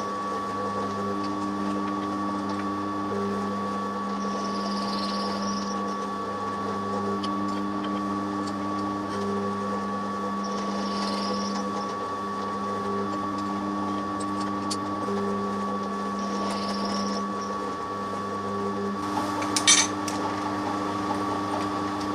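Milling machine running steadily while milling the square part of a bolt, with a hiss that comes back about every six seconds. A sharp click about twenty seconds in.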